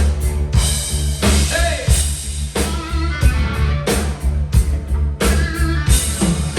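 Pop-rock song with a steady drum beat, bass and guitar; a singer calls out "Hey" early on.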